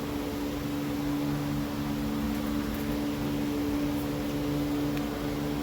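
Steady low mechanical hum of a running machine, with a held tone and a lower note that swells and fades slowly.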